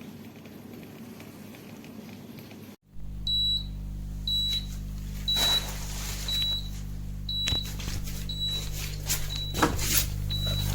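A steady hiss, then about three seconds in a steady electrical hum with a high electronic appliance beep repeating roughly once a second, and a few clicks among the beeps.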